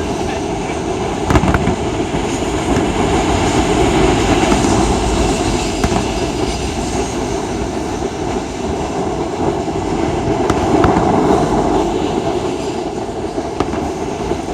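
Freight train rolling past, a loud steady rumble of wheels on rails with a few scattered sharp clicks.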